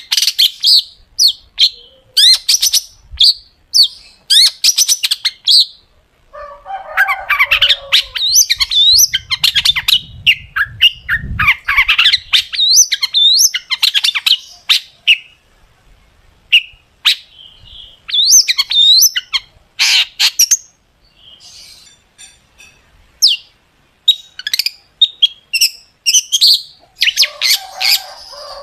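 Long-tailed shrike (cendet) singing in loud bursts of sharp, rapid whistled notes with short pauses between them. Harsh, grating chatter is mixed in about seven seconds in and again near the end.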